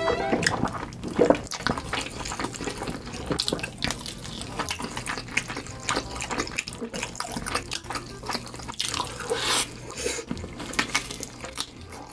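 Close-miked eating sounds: chewing fried chicken, with irregular crunches and wet mouth smacking.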